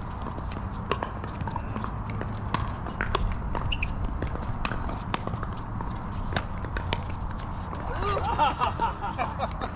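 Pickleball rally: sharp pops of paddles hitting the plastic ball and the ball bouncing on the hard court, about one or two a second, with shuffling footsteps. Voices call out briefly near the end.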